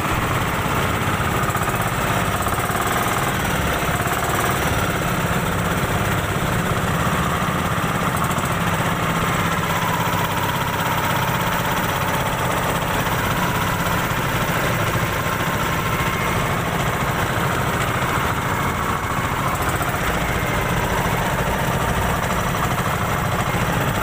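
Small boat engine of a motorized outrigger boat (bangka) running steadily under way, an even chugging drone with no change in speed.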